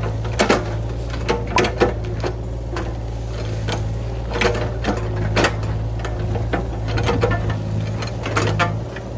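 Mini excavator's engine running steadily while it shakes an uprooted tree stump to knock the soil off the roots. Irregular sharp clanks and knocks from the bucket and stump sound several times over the steady drone.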